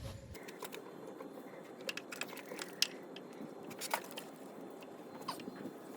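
Scattered light clicks and taps of hand work on a motorcycle engine as a carburetor is being fitted, over a faint steady background hiss.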